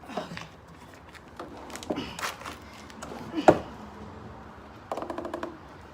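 Metal knocks and scraping as a window air conditioner's chassis is pushed and slid into its metal case, with one sharp clunk about three and a half seconds in.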